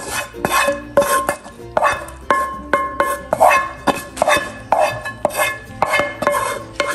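Background music of plucked strings with a steady beat, over a spoon or spatula scraping thick sauce out of a pan into a bowl.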